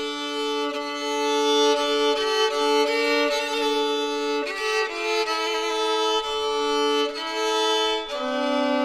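Background music: a melody of held notes over sustained chords, changing pitch every half second or so.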